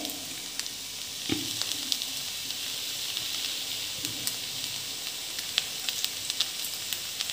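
Seafood Maggi noodles sizzling steadily in a pan over a gas flame, with a few light clicks scattered through it.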